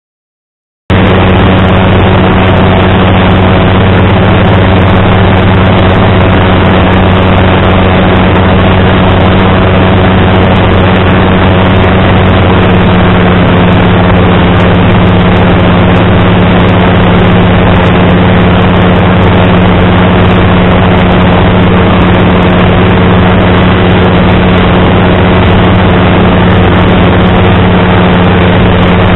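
Hirth F23 two-stroke flat-twin engine and propeller of a Sherwood Kub microlight running steadily at cruise power, a loud even drone. It cuts in suddenly about a second in.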